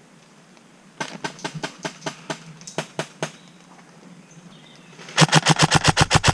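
Airsoft electric rifle (HK416 AEG) firing. An irregular scatter of fainter shots comes in the first half, then a loud rapid burst of about a dozen shots near the end.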